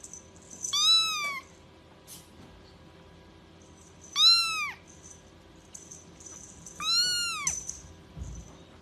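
A young kitten mewing three times, high-pitched calls a few seconds apart, each rising then falling in pitch.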